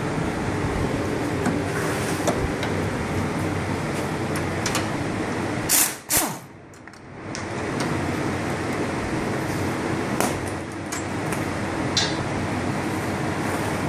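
An air impact wrench on the Gator's front suspension fasteners fires one short loud burst about halfway through. Around it runs a steady mechanical drone with a few light metal clinks of tools.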